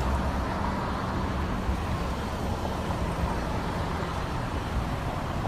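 Steady outdoor background noise, a low rumble with hiss, with no distinct events.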